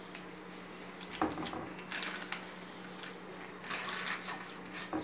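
Silicone spatula scraping and pushing egg yolks through a small plastic mesh sieve: short, irregular rubbing strokes starting about a second in, with a few light knocks, over a steady low hum.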